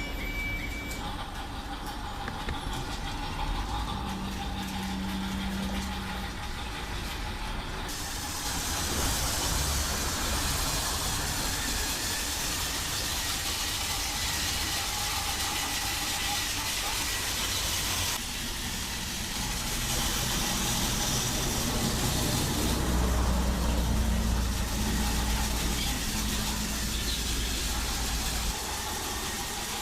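TOMY Trackmaster 2 Talking Percy, a battery-powered toy tank engine, running along its plastic track with its motor and wheels going steadily. A hiss from its built-in sound effects comes in about eight seconds in, breaks off partway through, and returns.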